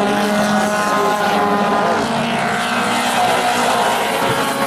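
Several mini stock race cars running at racing speed, their engines overlapping, with pitches rising and falling as they go through the turns.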